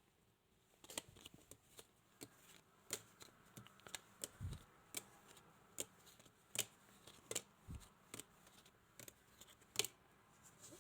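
Playing cards dealt one at a time onto a table, four to each player. Each card lands with a short light snap, about two a second, and there are a couple of dull thumps along the way.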